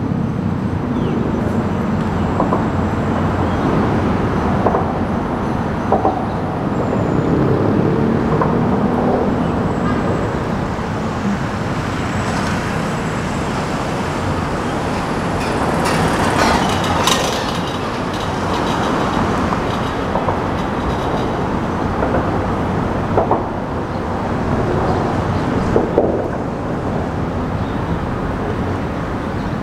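Steady rumble of vehicle traffic, with a few short clicks.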